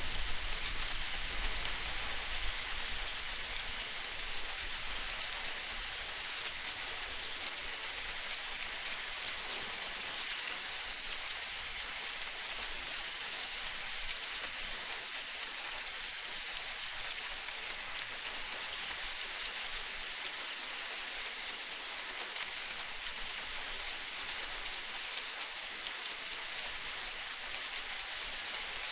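Steady hiss of falling rain, even and unbroken, with the tail of a low rumble fading out in the first couple of seconds.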